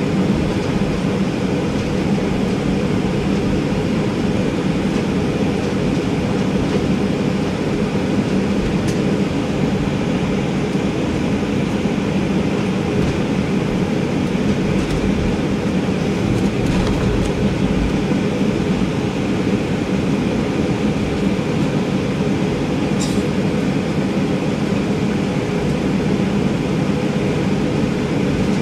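Cabin noise inside a Boeing 737-800: a steady low drone from its CFM56-7B turbofan engines at low power on the ground, with a few faint clicks.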